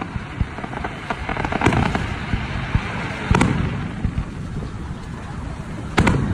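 Aerial fireworks shells bursting: sharp bangs about a second and a half in and again about three and a half seconds in, and the loudest near the end, with crackling and a low rumble between.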